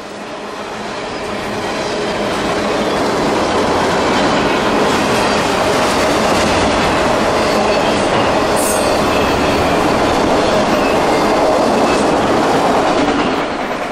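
Freight cars of a CSX mixed-freight train rolling past, their steel wheels clattering on the rails. The noise builds over the first few seconds, holds steady, then drops off near the end as the last car goes by.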